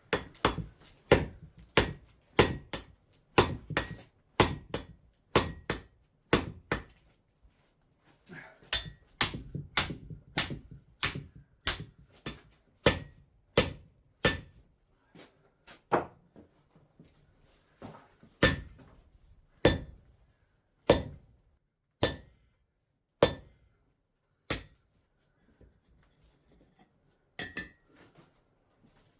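Hammer blows on a hot 25 mm square steel bar being bent 90 degrees on the anvil. The blows come about two a second in runs with short pauses, then slow to single blows about a second apart, and die away near the end. Some blows ring briefly.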